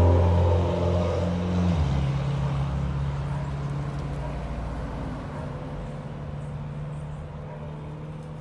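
A motor vehicle engine running steadily, its pitch stepping down about two seconds in, then slowly fading away.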